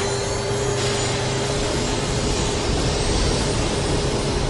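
Twin MiG-21 turbojet engines of the Big Wind firefighting machine running at full throttle, water injected into their exhaust: a loud, steady roar with a held droning tone. A lower hum fades out about a second and a half in.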